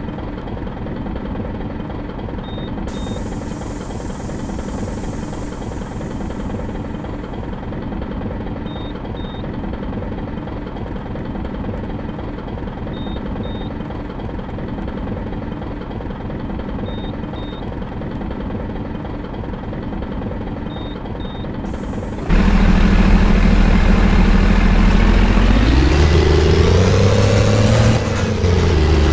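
Bus diesel engine, one that sounds like a truck's, running steadily, with a pair of short high beeps repeating about every four seconds. About 22 seconds in it becomes much louder, and the engine revs up as the bus pulls away, its pitch rising and then dropping briefly near the end at a gear change.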